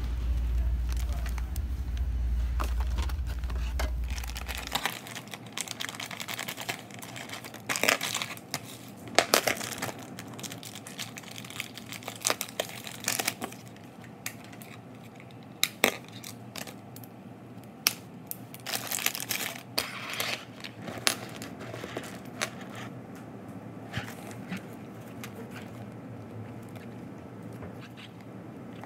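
Small metal split rings and carabiners clinking and clicking, with a plastic bag and packaging crinkling as they are handled and a split ring is pried open. For the first few seconds a low rumble, which cuts off suddenly.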